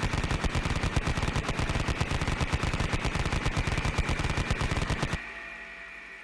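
Machine gun firing one long, continuous rapid-fire burst of about five seconds that cuts off abruptly, followed by a fading echo tail.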